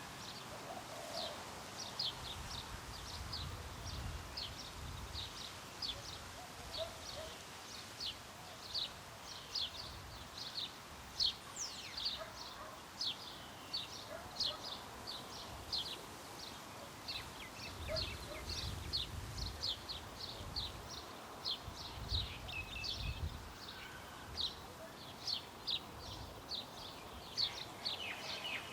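Birds chirping in a steady run of short, high calls, about two a second, over light wind and distant traffic whose low rumble swells now and then.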